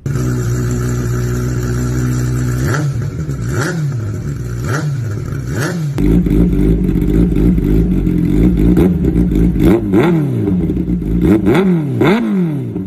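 Kawasaki Ninja ZX-10R inline-four superbike engine through an aftermarket full-system exhaust. It idles steadily, then the throttle is blipped in a series of quick revs. About six seconds in the sound cuts to another exhaust on the same bike, revved repeatedly in short, sharp blips.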